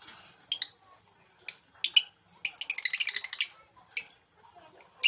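Lovebird giving shrill, sharp chirps. A few single calls come first, then a fast chattering run of notes lasting about a second, then two more single calls.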